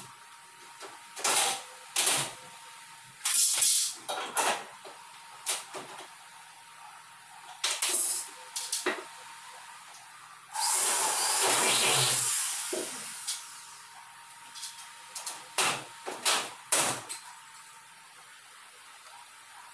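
Aluminium framing profiles and tools being handled: scattered sharp clicks and light metal knocks. About halfway through there is a louder noisy rush of about two and a half seconds.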